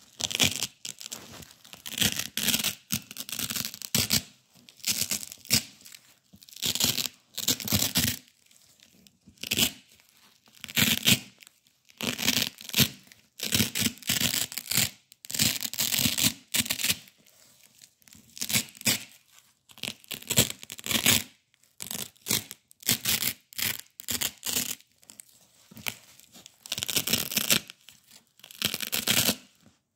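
Black hook-and-loop (Velcro) tape being ripped apart by hand over and over, each pull a short crunchy tearing rip lasting about half a second to a second, with brief pauses between pulls.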